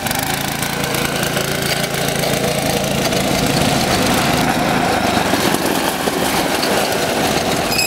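Yerf-Dog go-kart buggy's single-cylinder Tecumseh engine running steadily under throttle as the buggy drives over dirt.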